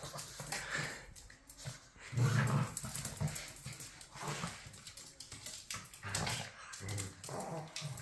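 A puppy and a small dog play-fighting, with short low growls several times, the loudest about two seconds in.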